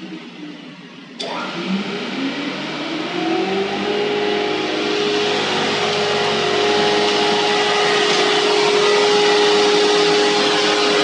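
Beaver 623 four-sided moulder with its spindle motors running. About a second in, another motor is switched on and its whine rises over about three seconds to a steady pitch. The machine then runs steadily at full speed with a loud hiss.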